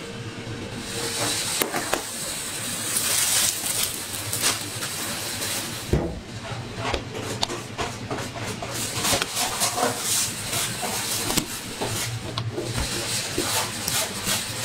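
A wooden rolling pin rolling out dough on a stainless steel worktable, with irregular knocks and clicks of handling, over a steady low hum.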